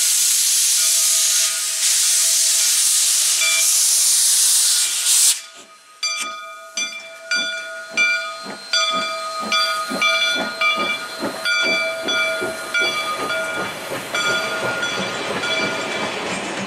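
Steam locomotive releasing a loud, steady hiss of steam, which cuts off about five seconds in. Then exhaust chuffs begin, about two a second at first and quickening as the engine gets under way.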